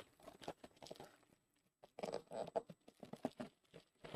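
Faint handling noise from sealed trading-card boxes and packs being opened: irregular small clicks and rustles of cardboard and wrapper.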